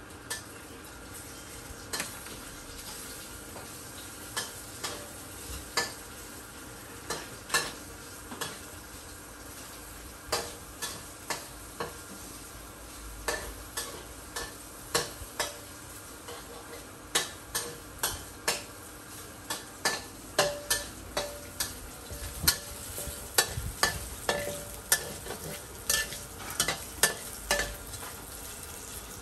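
Metal spatula striking and scraping a wok during a stir-fry, in sharp clanks that come sparsely at first and faster from about halfway, over a steady frying sizzle.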